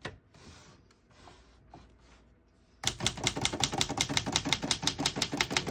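1924 Remington Portable typewriter being typed. After a quiet stretch, a rapid, even run of keystrokes starts about three seconds in, the type bars striking the platen about ten times a second with no keys skipping or sticking.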